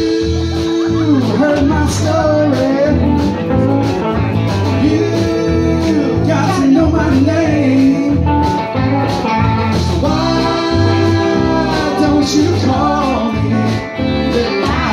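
Live band playing a country-rock song: a woman singing lead over electric guitars, with a steady beat.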